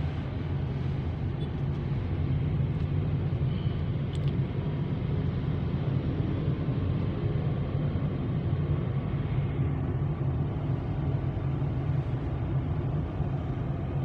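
Steady low rumble of a Toyota car driving along a city street, heard from inside the cabin: engine and tyre noise.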